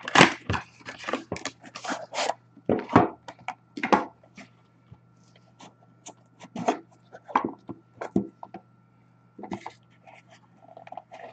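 Handling noise from a small black coin presentation box being worked open by hand: a run of quick taps, clicks and scrapes in clusters, thickest in the first few seconds.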